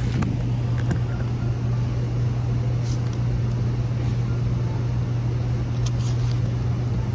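A steady low mechanical hum over a constant background noise, with a few faint clicks.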